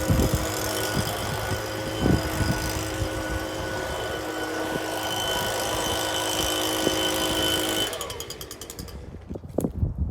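Wood-Mizer portable band sawmill running steadily, then shut down about eight seconds in and winding down over about a second, followed by a few light knocks.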